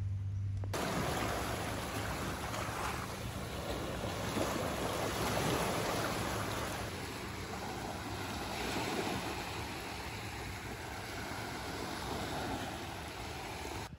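Small waves breaking and washing up on a sandy beach: a steady rush of surf that swells and eases. A low steady hum stops under a second in, as the surf begins.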